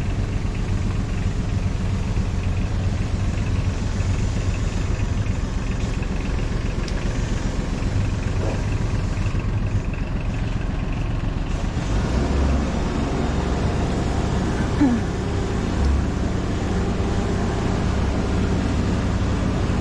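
An engine idling steadily, a low, even rumble, with a slight rise in its low note about twelve seconds in.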